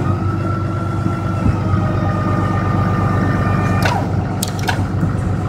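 Cummins 6.7 turbo diesel idling through a straight-piped exhaust, under a steady whine from the Fisher plow's hydraulic unit that lasts about four seconds as the plow moves sluggishly, which the owner puts down to low hydraulic fluid. A few sharp clicks follow near the end.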